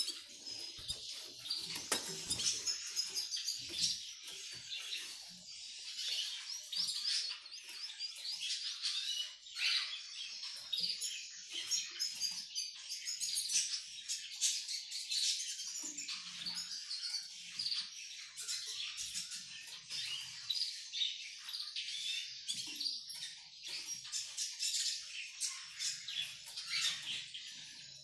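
Male hooded siskin (pintassilgo mineiro) singing a long, rapid, unbroken twittering song of short chirps and trills, with occasional sharp clicks. The song is given to a canary hen he is being paired with.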